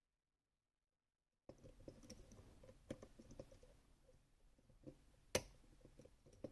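Small irregular metallic clicks and light scraping from work on a Rosengrens 32A81H lock, starting suddenly about one and a half seconds in. One sharp click stands out near the end.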